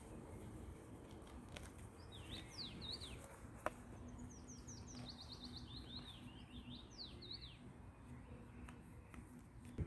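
A songbird singing a twittering phrase of quick high chirps and a fast trill, from about two seconds in until near the end, over faint background noise. A single sharp click comes a little under four seconds in.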